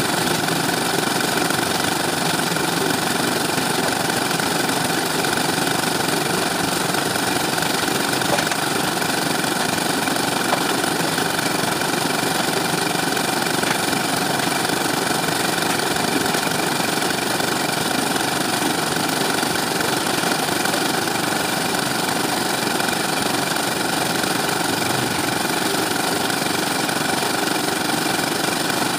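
Small belt-driven engine of a concrete mixer running steadily at an even speed.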